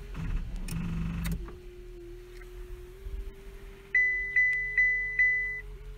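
Four loud electronic beeps, about two and a half a second, over a held high tone in the last two seconds, with a steady faint hum underneath. A brief noisy rumble with a buzz fills the first second and a half.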